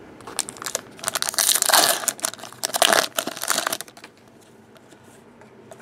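Trading-card pack wrappers crinkled and torn open by hand, in two loud spells of crackling that stop about four seconds in.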